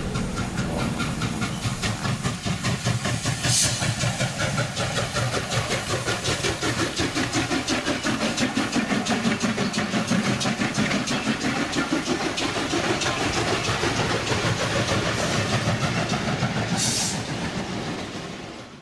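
Steam locomotive No. 1630, a 2-10-0 Decapod, running past at speed: a fast, even beat of exhaust chuffs and running gear, about four or five a second, with two short hisses of steam, before it fades out at the end.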